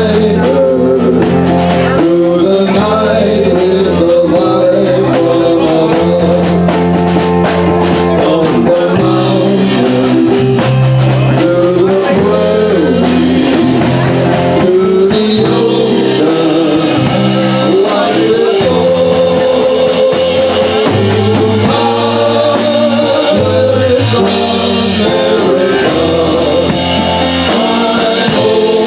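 Live band playing with a man singing through the PA: electric bass, accordion, keyboard and drum kit with cymbals, all at a steady, loud level.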